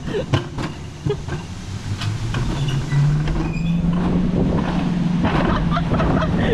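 Jungle coaster sled running fast down its metal rail: a steady rumble with clicks and rattles, then a low hum that rises in pitch as it picks up speed and holds steady.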